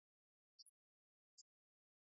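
Near silence, broken only by three very faint, short, high ticks.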